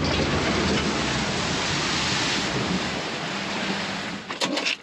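An off-road truck driving through a water crossing: a steady rush of water splashing against it, cutting off sharply about four and a half seconds in. This is the crossing in which the truck's engine was swamped.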